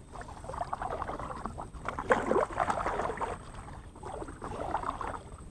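Kayak paddles dipping and pulling through calm water, three splashing strokes about two seconds apart.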